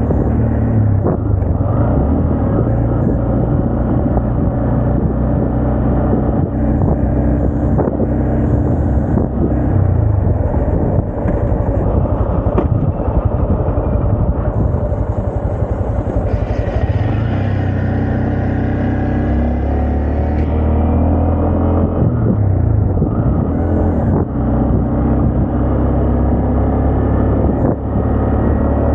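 Honda Grom's 125cc single-cylinder engine running under way, its note shifting up and down with the throttle. A higher-pitched whine joins for a few seconds about two-thirds of the way through.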